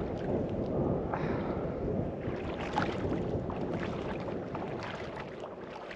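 Small boat underway on open water: a steady rush of motor, water and wind, with light splashes and knocks against the hull.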